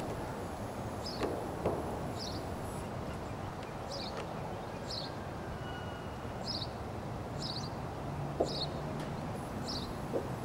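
A Spotted Draft/Thoroughbred cross mare trotting on sand footing, her hoofbeats a few soft thuds over a steady outdoor hiss. A bird's short high chirp repeats about once a second.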